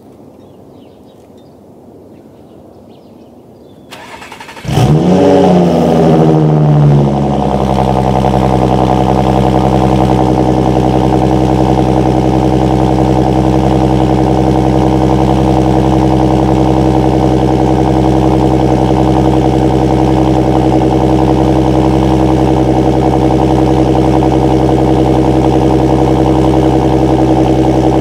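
Audi A7's supercharged V6 starting: it catches about four to five seconds in with a loud flare that rises and falls in pitch over about two seconds, then settles into a steady idle.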